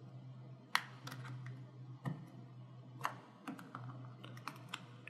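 Small plastic clicks and ticks as a metal pry tool works under a laptop key's plastic retainer clip on a Dell Inspiron 5590 keyboard to lift it off. Three sharper clicks come about a second apart, then a quick run of fainter ticks near the end.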